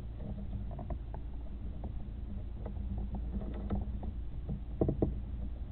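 Handling noise from a borescope probe being moved: scattered small clicks and rubbing over a steady low hum, with a short cluster of louder knocks a little before the end.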